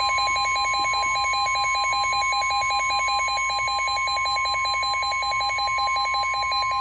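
NOAA Weather Radio warning alarm tone, a steady 1050 Hz tone, sounding with a rapid pulsing beep layered over it; it marks the start of a severe thunderstorm warning broadcast.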